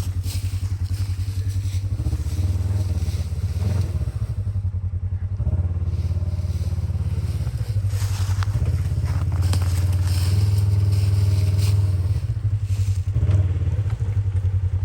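Off-road vehicle engine running steadily at low revs, pulsing evenly and picking up somewhat partway through, as the vehicle works slowly through a trail obstacle, with a few short knocks.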